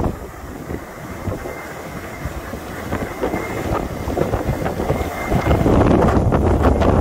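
Gale-force wind buffeting the microphone and rushing past a pole of Yagi TV aerials, with a faint high steady whistle of the wind singing through the aerials. A stronger gust comes in about five and a half seconds in.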